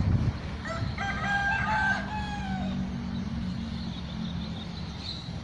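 Rooster crowing once: a single cock-a-doodle-doo of about two seconds, starting about a second in and falling away at the end.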